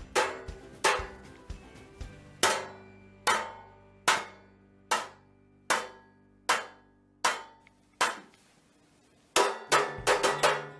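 Metal baking pan struck with a metal spoon: about ten evenly spaced clanging hits, each ringing briefly, then a quick flurry of strikes near the end.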